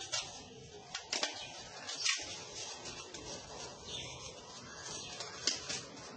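Faint, irregular rustling and crinkling of paper banknotes being handled, with a few sharper crackles about a second and two seconds in.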